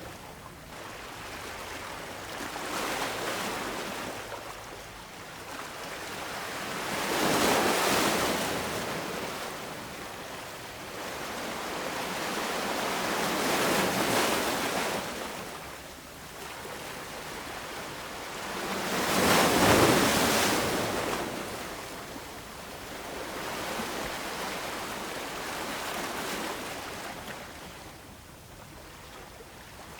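Ocean waves breaking and washing in, rising and falling in about five slow surges, the loudest about two-thirds of the way through.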